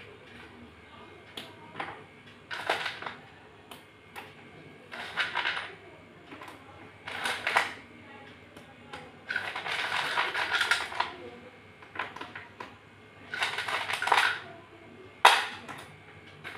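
Wet slate pencil pieces crushed between the fingers, crunching and grinding in about six bursts, the longest lasting nearly two seconds about ten seconds in. Light clicks of the pieces between the bursts.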